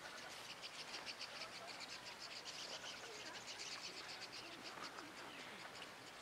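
Faint insects chirping outdoors in a fast, even pulse.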